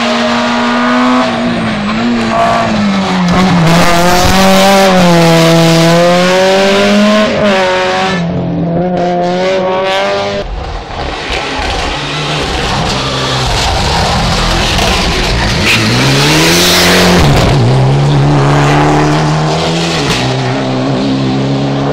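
Rally car engines run hard on tarmac stages, the engine pitch climbing and dropping repeatedly through throttle and gear changes. Around the middle there is a stretch of loud noise without a clear engine note.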